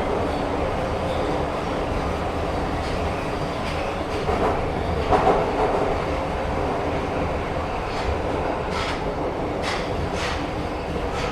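Train running along the track with a steady rumble, and a few sharp clacks of the wheels near the end.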